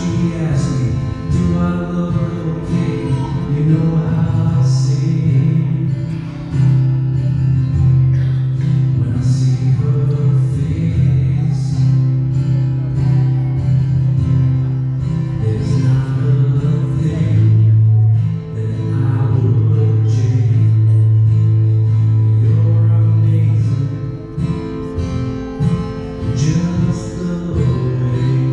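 A song played on acoustic guitar with a singing voice, holding some long notes.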